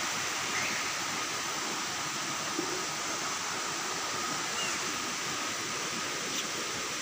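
Steady rush of flowing river water, with a faint steady high tone behind it.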